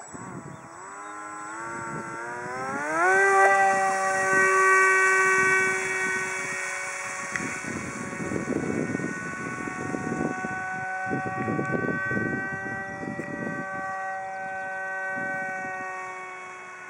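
Depron RC F-22 model jet's motor spooling up to full throttle as a rising whine over the first few seconds, then running at a steady high pitch as the plane climbs away, fading near the end.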